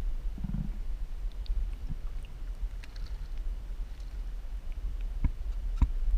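Muffled water sloshing against a camera held at the boat's waterline: a steady low rumble with a few faint ticks and taps.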